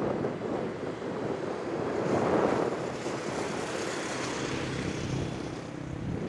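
Road traffic noise: a car passing, loudest about two and a half seconds in, with wind rumbling on the microphone.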